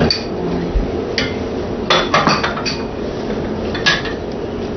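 Light clinks and knocks of a plastic ladle and a ceramic soup bowl on its plate, a handful of short taps with the sharpest near the end.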